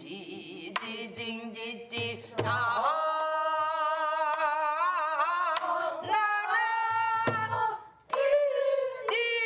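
Korean traditional folk singing: a woman's voice holding long notes that waver in pitch, with a few sharp drum strokes between phrases.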